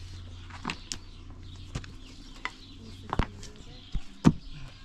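Irregular sharp knocks and taps, about eight in all, over a faint low hum; the loudest knock comes a little past four seconds in.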